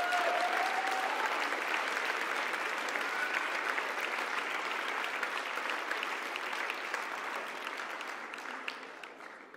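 A seated audience applauding, the clapping fading away near the end.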